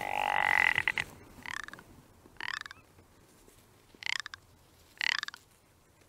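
Rock ptarmigan giving its rattling, croaking call: one long, loud call at the start, then four shorter croaks about a second apart.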